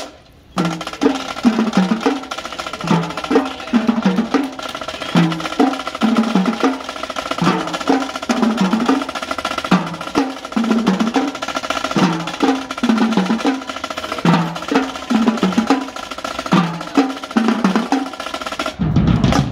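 Marching drumline playing a cadence together: crisp snare drum rolls and strokes over tenor drums and tuned bass drums sounding short low notes in turn. The full line comes in about half a second in.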